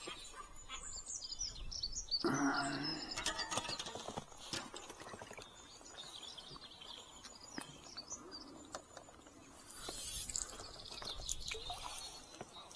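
Small birds chirping and twittering, with a louder noisy rustle about two seconds in and scattered sharp clicks.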